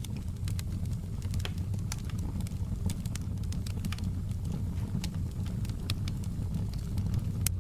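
Wood fire crackling in a fireplace: irregular sharp pops and snaps over a steady low rumble of the flames.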